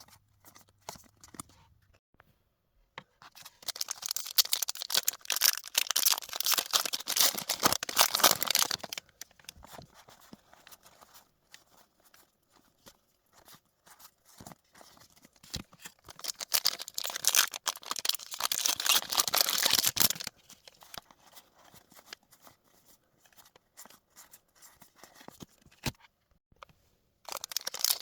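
Foil Pokémon card booster packs being torn open, the wrappers crackling and tearing in two long spells, about three seconds in and again about fifteen seconds in, with a third starting near the end. Faint scattered clicks fill the gaps between.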